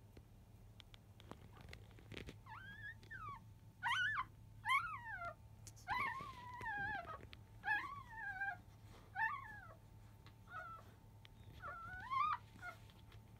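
Newborn Labrador Retriever puppies whining and squealing while nursing: about eight short, high, wavering cries, with a longer falling cry near the middle.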